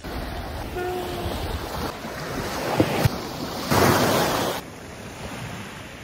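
Sea waves breaking on a beach in rough surf, with wind on the microphone; a louder rush of water comes about four seconds in, then it settles quieter.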